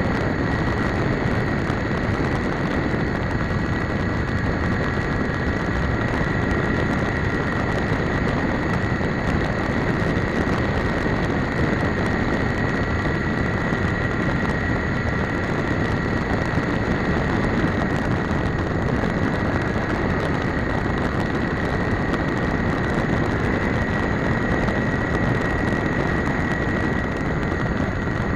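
Electric motor and propeller of a GWS Slow Stick RC park flyer, heard from its onboard camera in flight: a steady high whine over a heavy rumble of wind and airframe vibration.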